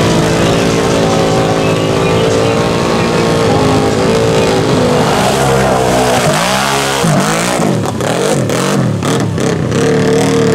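ATV engines running under load in deep mud, then revved up and down several times in quick succession about two-thirds of the way in, with irregular clatter near the end.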